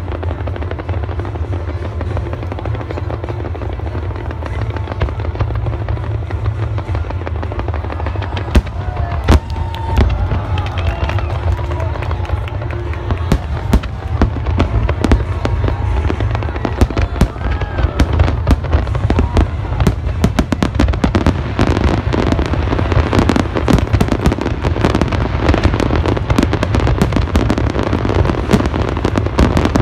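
Fireworks going off: a steady low rumble at first, then sharp bangs from about eight seconds in. They thicken into a dense barrage of rapid bangs and crackles through the last third.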